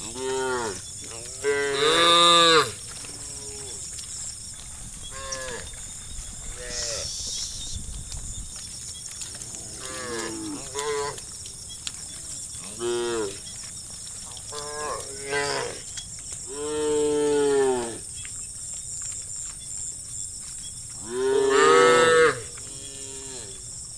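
Herd of cows mooing, call after call from several animals at different pitches. The loudest long moos come about two seconds in, about two-thirds of the way through and near the end.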